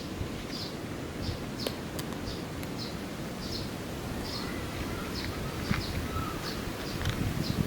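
Outdoor ambience: a steady low rumble of background noise, with short high chirps repeating about twice a second and a few fainter lower calls in the second half.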